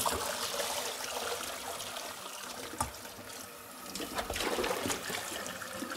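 Kitchen tap water running steadily into a sink and a stainless steel colander as embroidery is rinsed, with trickling and splashing. A small knock about three seconds in, and the splashing gets louder for a moment around four seconds in.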